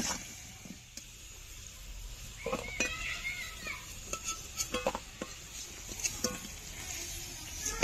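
Metal spatula scraping and clinking against a metal wok and a steel bowl as fried potato wedges are scooped out of the oil, a series of separate sharp clinks.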